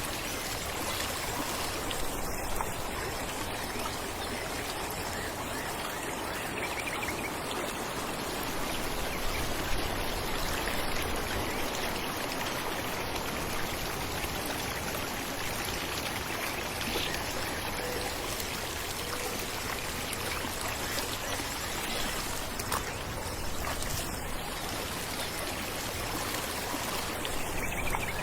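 Falling water running steadily, an even rushing splash that holds unchanged throughout.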